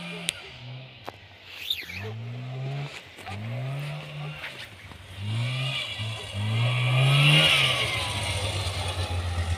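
Rys 440 snowmobile's two-stroke engine revving up and dropping back about five times as it rides along, growing louder as it draws nearer in the latter half.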